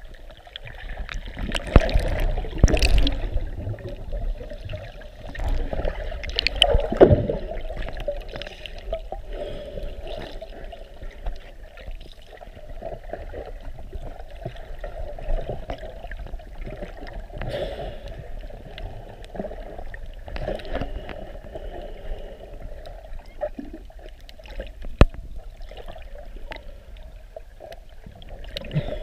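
Muffled underwater water noise from a swimmer moving through the water: irregular sloshing and gurgling. It has a few louder surges in the first several seconds and a single sharp click near the end.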